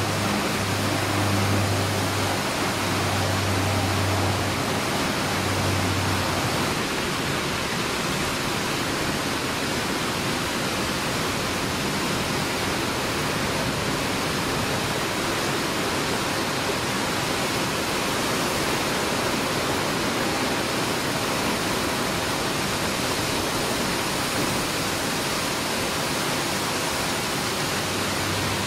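Steady hiss of rain throughout. Under it for the first six seconds or so is the low, wavering propeller drone of a Fairchild Metro turboprop climbing away, which fades out.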